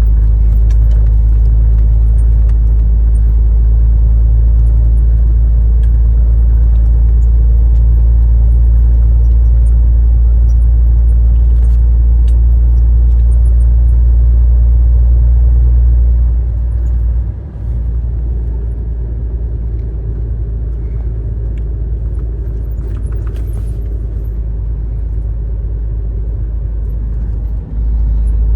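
Heavy truck's engine and road noise heard inside the cab while driving: a steady low rumble that drops noticeably in level about sixteen seconds in and stays lower.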